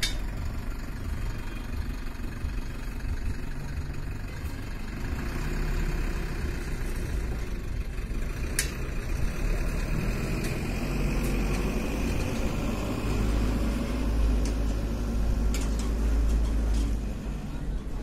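An engine idling steadily, a low rumble that fills out somewhat in the last few seconds, with a few faint clicks.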